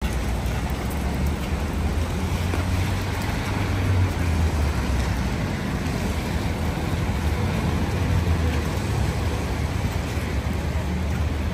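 Rain and traffic on a wet city street: a steady hiss of rain and tyres on wet pavement over a constant low rumble.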